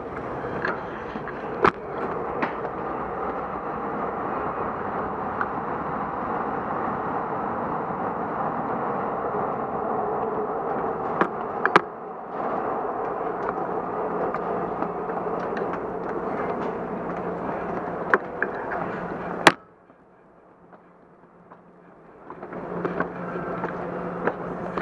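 A long escalator running, a steady mechanical rumble with scattered sharp clicks. The noise drops away suddenly after a loud click about two-thirds of the way through and returns a few seconds later with a low steady hum.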